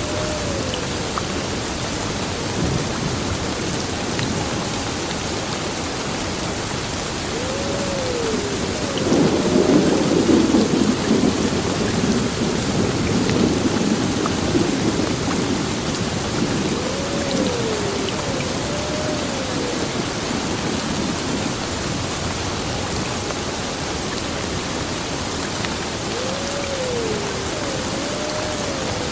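Heavy rain falling steadily on a building, with a roll of thunder rumbling in about nine seconds in and dying away over several seconds. A pair of short rising-and-falling tones recurs faintly about every nine seconds.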